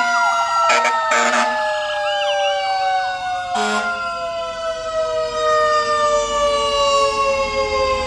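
Fire engine siren winding down in one long wail, its pitch falling slowly and steadily, typical of a mechanical siren coasting to a stop. A fainter electronic siren warbles a few seconds in, with short blasts near the start, and the low engine rumble of a fire truck passing close rises near the end.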